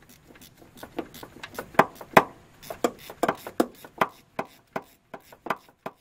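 Ratchet wrench clicking in short, irregular runs while spark plugs are tightened down, the loudest clicks about two seconds in.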